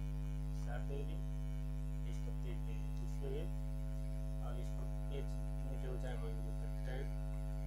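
Steady electrical mains hum with a stack of overtones, with faint, brief voice-like sounds over it now and then.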